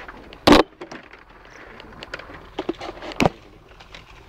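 Handling knocks from a phone camera bumping against the vehicle's window frame: a sharp knock about half a second in, lighter clicks, and a second sharp knock about three seconds in.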